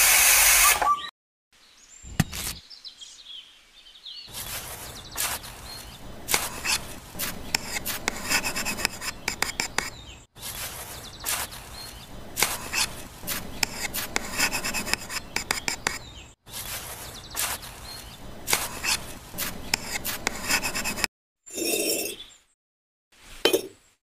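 Rapid light clinks and scrapes of a tiny spoon working wet cement slurry in a steel plate, with miniature bricks being set down. The sound comes in several stretches that cut off suddenly.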